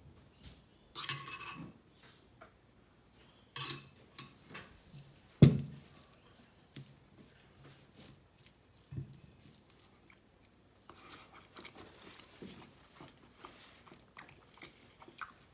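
Close-miked chewing and eating of beef tehari and egg korma, with soft mouth sounds and clinks of the plate. There is one sharp knock about five seconds in, and a few louder bursts of eating noise around one and three and a half seconds in.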